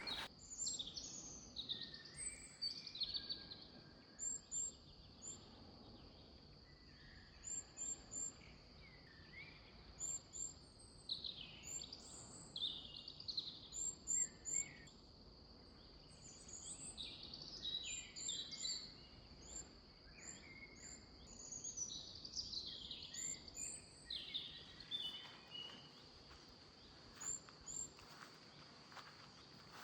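Several birds singing, with varied whistled phrases and chirps and a repeated pair of short, very high notes, over a steady high-pitched hiss that runs throughout.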